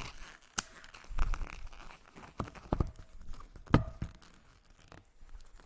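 Inflated long latex balloons being handled and tied together at the necks: scattered short knocks and rubbery rubbing sounds, with a louder knock a little under four seconds in.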